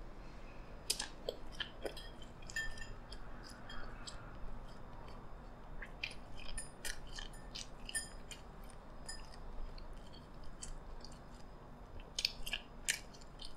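A mouthful of juicy pork chop being chewed with the mouth closed, close to the microphone: soft wet smacks and clicks at irregular intervals.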